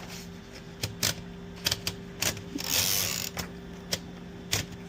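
Irregular sharp clicks and clacks from a Remington 5 typewriter's mechanism as it is worked by hand, about seven in all, with a short scraping rustle about three seconds in. A steady low hum runs underneath.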